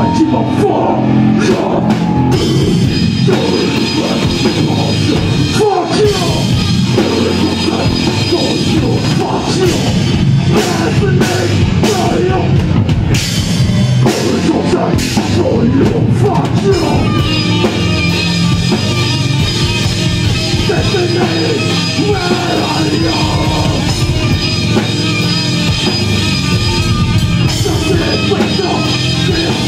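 Rock band playing heavy music live and loud, with electric guitar and drum kit.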